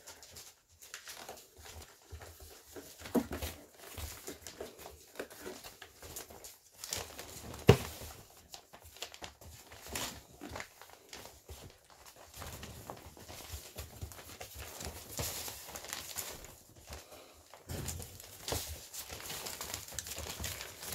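Newspaper rustling and crinkling under Kromfohrländer puppies moving about and chewing on it, with scattered light taps and one sharp knock about eight seconds in.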